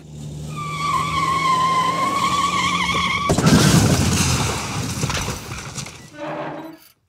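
Car sound effect: tires squeal in a long skid, then about three seconds in a sudden loud noisy rush that fades away. A short pitched sound follows near the end.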